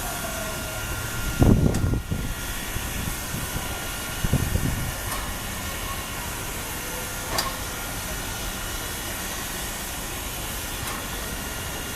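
P36 steam locomotive at the platform with a steady hiss of steam, broken by two heavy low chuffs about three seconds apart and a couple of sharp clanks later.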